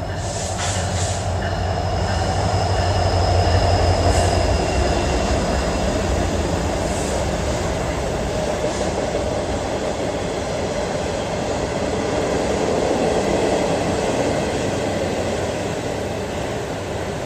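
Freight or passenger train passing: a continuous rumble of wheels rolling on the rails, swelling twice. A thin high squeal rings through roughly the first seven seconds.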